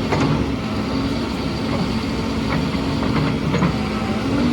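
Heavy construction machinery engine running steadily with a low hum, with a few sharp knocks scattered through.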